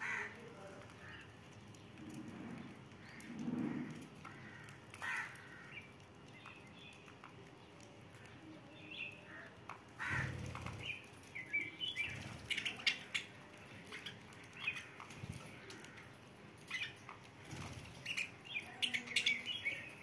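Budgerigars chirping and chattering in short calls, sparse at first and much busier from about halfway, with a couple of low dull bumps.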